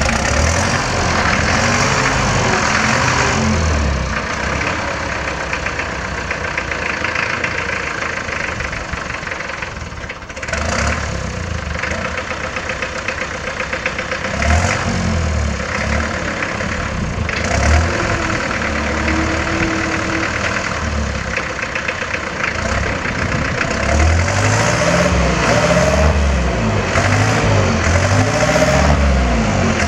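Turbocharged diesel engine of an old International tractor, the uploader thinks a B250, running as the tractor drives slowly about. It dips briefly about ten seconds in, and in the second half it is revved up and down several times.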